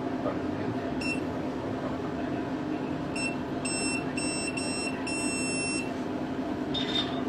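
High-pitched electronic beeps from a cosmetic laser machine during a facial laser treatment. One beep comes about a second in, then a run of beeps from about three to six seconds in, over a steady low hum.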